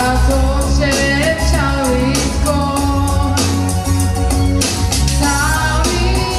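Woman singing a Hebrew pop song live into a handheld microphone, backed by instrumental accompaniment with a strong low bass line.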